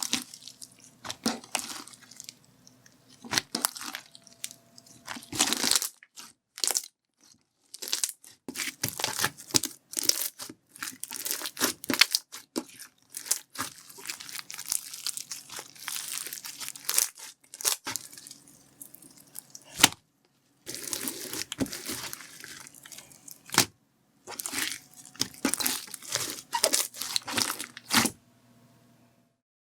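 Grape jelly foam slime being squished, pressed and stretched by hand, giving crackling, crunchy squelches and sharp popping clicks in irregular bursts. It stops shortly before the end.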